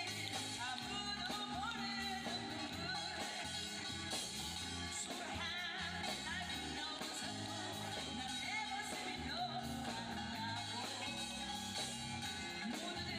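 Background music: a song with a sung vocal over a band with guitar.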